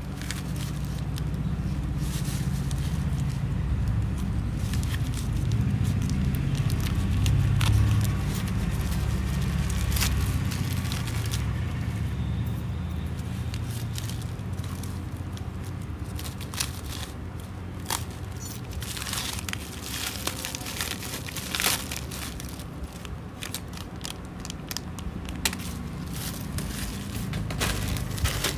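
Plastic bubble-wrap packaging being torn open and handled, crinkling and crackling, with many sharp clicks that come thicker in the second half. A low rumble runs underneath, strongest in the first half.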